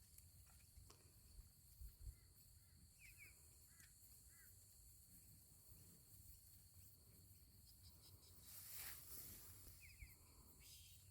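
Faint outdoor ambience: a steady high drone of insects with a few short bird chirps. A brief rush of noise comes about three-quarters of the way through.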